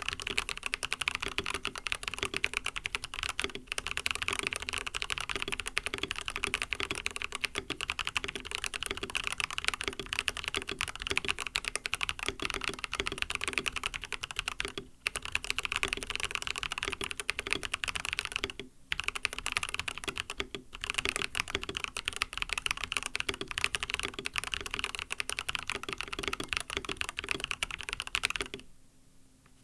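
Steady, fast typing on a mechanical keyboard with fully lubed MMD Coral 45g tactile switches and a silicone plate foam. The keystrokes are dense and continuous, with a few brief pauses, and the typing stops shortly before the end.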